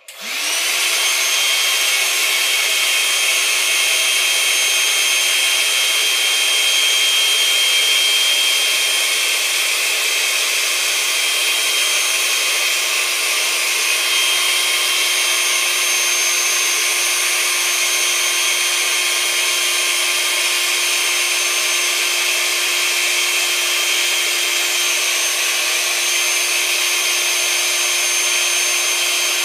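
Small handheld electric air pump switched on and running steadily, sucking the air out of a 6-foot inflatable beach ball through its valve. It makes a constant motor whine over a rush of air.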